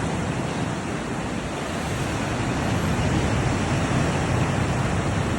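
Black Sea surf washing onto the shore, a steady rush of waves that dips slightly and swells again about two seconds in, with some wind noise on the microphone.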